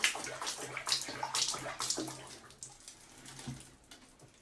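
Water splashing and sloshing in a plastic basin as a cat shifts in its bath. The splashes come irregularly and die down after about three seconds.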